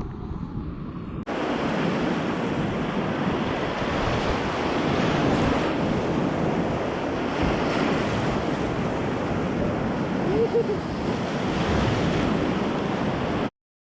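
Steady rushing of river whitewater, with wind buffeting the microphone. It starts abruptly about a second in and cuts off suddenly near the end.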